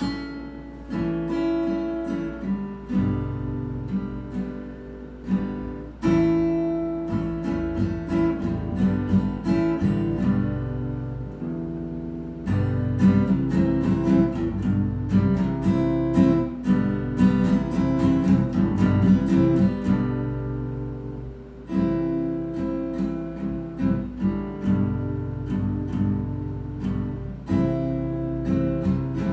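Acoustic guitar strummed solo in a steady rhythm. Around the middle the strumming gets louder and busier, eases off for a moment, then picks up again.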